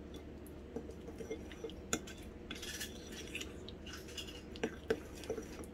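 Metal spoon stirring a soft ghee-and-rice-flour paste in a small ceramic bowl, with light, irregular clinks and scrapes against the bowl.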